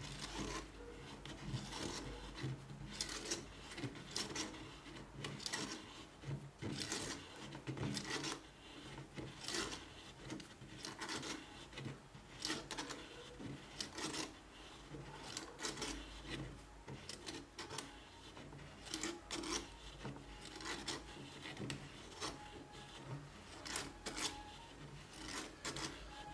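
A homemade windup spring made from a steel tape-measure blade, being wound by hand: fingers turn its plastic bobbin in a long run of short, irregular strokes, each a brief rubbing and scraping of plastic, tape and wood.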